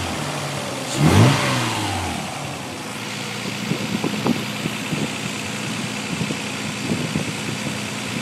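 1990 Nissan 300ZX's V6 engine blipped briefly about a second in, then settling to idle with irregular sharp pops through the exhaust. The pops are a sporadic misfire on the driver's side, which the owner traces to the #4 cylinder's injector.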